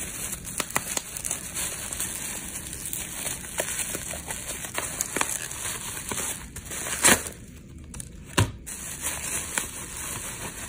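Packaging being handled and unpacked: rustling and crinkling with many small clicks, and two sharper knocks a little over a second apart late on.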